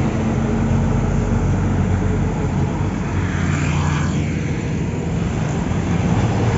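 Highway traffic passing close by: a Mitsubishi Fuso truck's diesel engine drones low and steady with tyre noise. A motorcycle goes past about four seconds in.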